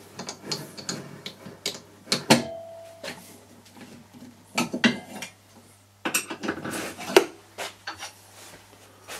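Metal clicks and clinks of a four-jaw lathe chuck being screwed onto the lathe spindle through a threaded adapter, with a short metallic ring about two and a half seconds in.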